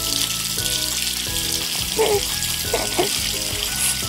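Running tap water, a steady hiss, over background music.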